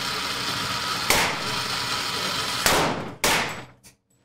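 Three gunshots about a second and a half, then half a second apart, on an indoor shooting range. Each shot is followed by a long echoing tail.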